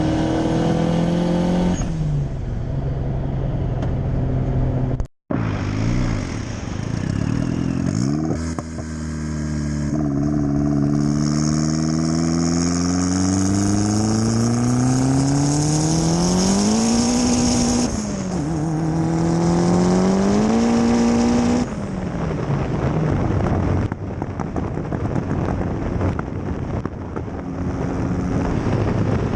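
Turbocharged Honda D15B four-cylinder engine under hard acceleration runs through the gears: the revs climb, drop at a shift about two seconds in, climb in a long pull, shift again near the 18-second mark, climb once more, then fall away off throttle. The sound cuts out for a moment about five seconds in. A high steady whine sits above the engine through most of the long pull.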